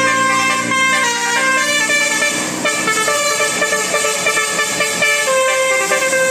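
Bus 'telolet basuri' musical horn playing a tune: a fast run of held horn notes stepping up and down in pitch.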